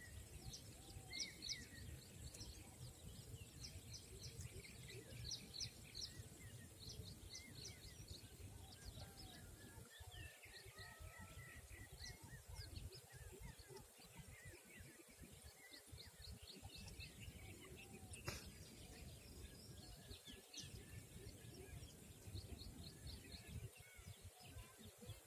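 Faint birdsong: many short chirps and trills from small birds, scattered throughout, over low, steady background noise, with a single sharp click about three-quarters of the way through.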